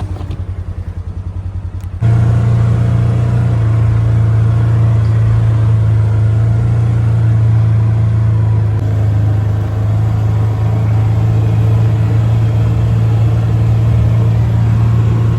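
Vehicle engine running with a pulsing low beat, then about two seconds in an abrupt switch to a louder, steady deep hum, as of the vehicle driving along.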